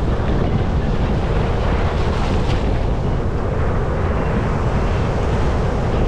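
Ocean surf breaking and foamy water washing up the beach, a steady rushing noise, with strong wind buffeting the microphone.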